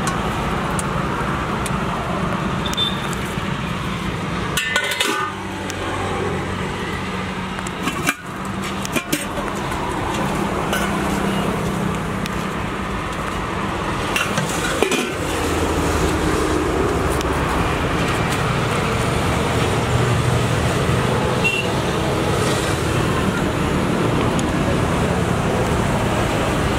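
Steady roadside traffic noise, with a few sudden knocks and clinks of steel pots and serving spoons.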